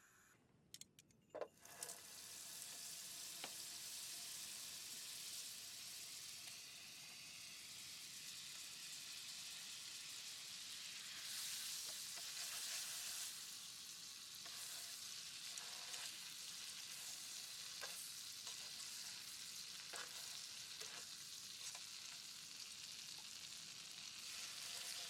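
Food sizzling as it fries in a pan, starting about two seconds in after a few sharp knocks, with small scattered clicks over the steady sizzle.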